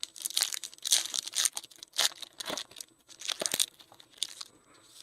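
Crinkling and tearing of a foil trading-card pack wrapper, with cards being handled: a run of irregular crackling rustles.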